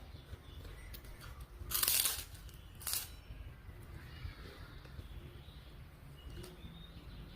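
Crunching bites into crisp food, two loud crunches about two and three seconds in, over a low steady background rumble.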